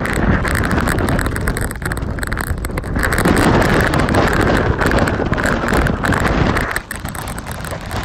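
Loud, gusting wind noise on the microphone of a moving vehicle, with road noise from the wet highway beneath.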